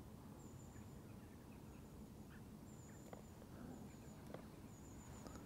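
Ducks quacking faintly, a few scattered calls.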